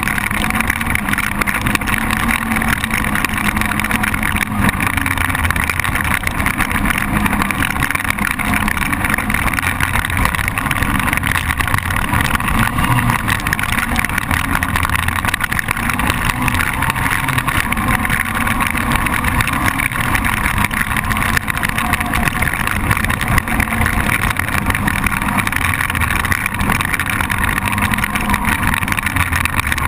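ATV (quad) engine running steadily as the machine is ridden along a trail at speed, loud and close from a camera mounted on the quad itself.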